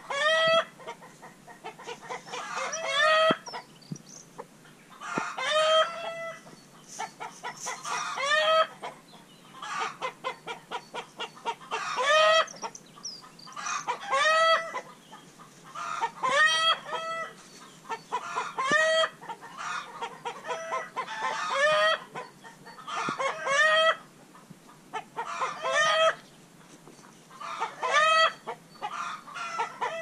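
Chicken cackling over and over: runs of quick clucks, each building to a louder drawn-out squawk, every two to three seconds.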